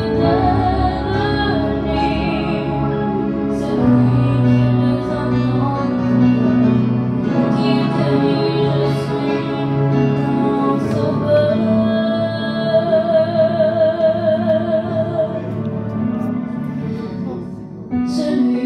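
A girl singing a French gospel hymn into a microphone over instrumental accompaniment, holding a long note with vibrato about two-thirds of the way through.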